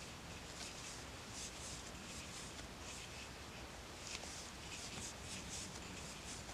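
Faint, scratchy rustling of yarn being drawn through loops by a crochet hook, in short, irregular strokes about two or three a second, with one small click about four seconds in.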